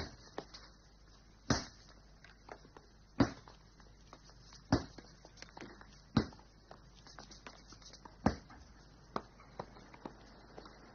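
Tennis racket strikes on a ball: a sharp pop about every one and a half seconds, with fainter knocks in between.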